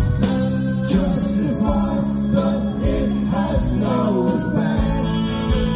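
Live rock band playing, with a man singing over electric guitars and a drum kit keeping a steady beat.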